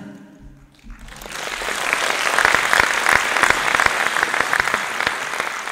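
Audience applauding after a song: the clapping builds about a second in, holds steady, and starts to thin out near the end.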